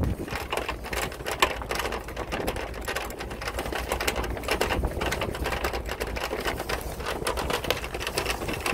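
Fast, irregular mechanical rattling over a low, steady rumble.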